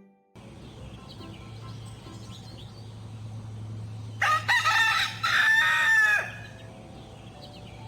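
Rooster crowing once, a loud cock-a-doodle-doo about two seconds long, starting about four seconds in, over a faint steady low hum.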